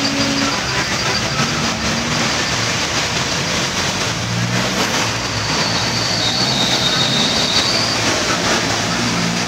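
Heavy rain and traffic on a flooded street: a steady rush of water and tyre spray, with vehicle engines running low underneath. A thin high squeal sounds for a couple of seconds about halfway through.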